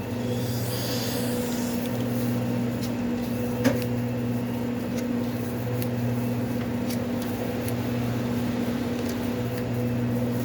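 Steady electrical hum of restaurant kitchen equipment running. A brief rustle comes in the first couple of seconds, and a single sharp click or knock a little under four seconds in.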